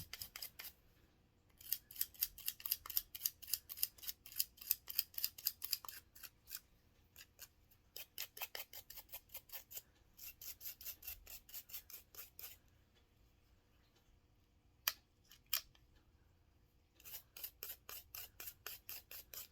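Quick back-and-forth brushing on a revolver's metal frame, about five strokes a second, in three spells with pauses between, and two sharp clicks in the middle pause.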